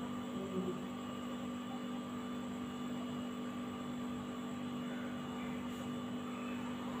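Steady electrical hum made of several fixed tones, unchanging throughout.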